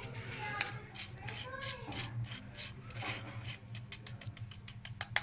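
Rapid, uneven scraping clicks of ground roasted asafoetida being rubbed through a tea strainer. The clicks come faster from about halfway through.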